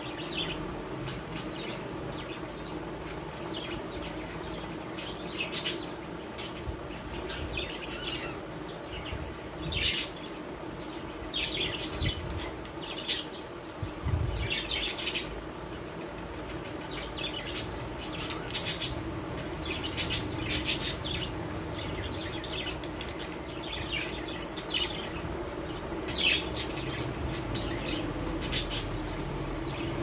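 Small pet parrots in a cage chirping and squawking: short, sharp calls scattered irregularly, several at a time, over a steady low hum, with a low thump about halfway through.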